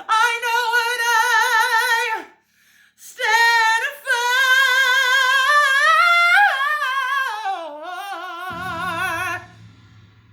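A woman belting long held notes with wide vibrato, musical-theatre style: a short phrase, a brief breath, then a long final note that climbs and then steps down, with low backing notes coming in near the end.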